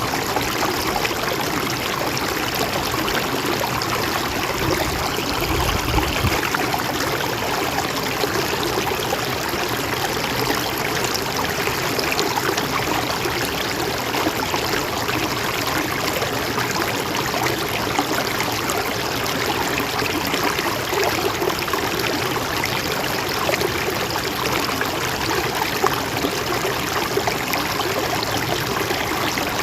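Gentle mountain stream flowing steadily, an even rush of water.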